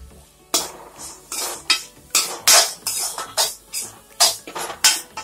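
Metal spatula scraping against a metal kadai as a thick chicken masala with fresh mint and coriander leaves is stirred. The scrapes come in a quick, even rhythm of roughly two strokes a second, starting about half a second in.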